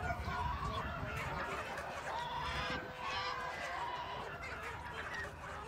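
Recorded chicken cries played over a truck's loudspeaker: many overlapping squawks and clucks, one after another, over a low rumble.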